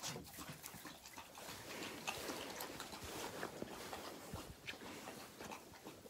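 Malamute-wolf puppies scrambling about in straw close to the microphone: rustling, scratching and soft snuffling, with irregular clicks.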